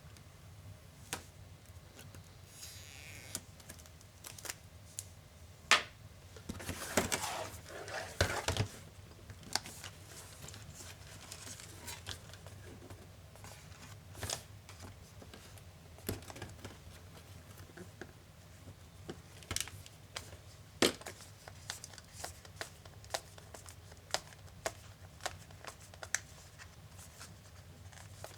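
Hands working on a laptop during disassembly: scattered small clicks and taps of parts and tools, with a crinkly tearing rustle about seven to eight seconds in.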